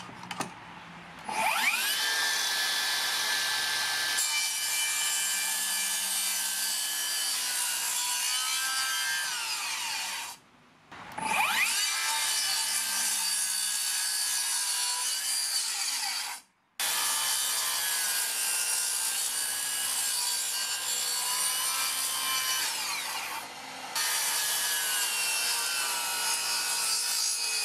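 Makita 40V XGT HS009G 235 mm cordless circular saw spinning up with a rising whine and cutting down into a thick timber post at full depth of cut. The motor winds down partway through and starts again, and the cutting sound breaks off abruptly twice more.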